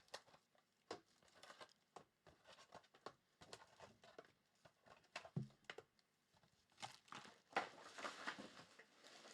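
Trading card packs being torn open and their wrappers crinkled, a quiet run of irregular rustles and tears that grows busier near the end.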